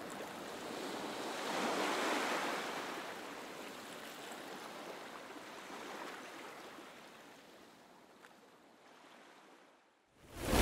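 Rushing wind-and-water noise, swelling about two seconds in and then fading slowly to near silence, with a sudden rising whoosh at the very end.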